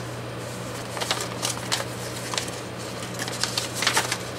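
Paper crinkling and tearing as a manila envelope's flap is ripped open by hand, in sharp crackles that come thicker from about a second in. A steady low hum runs underneath.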